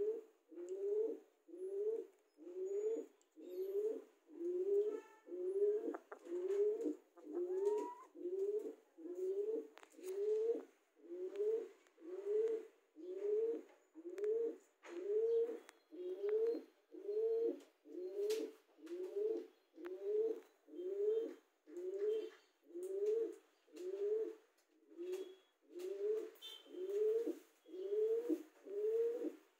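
Domestic pigeon cooing over and over, about one coo a second, each a short low note that swells and falls away.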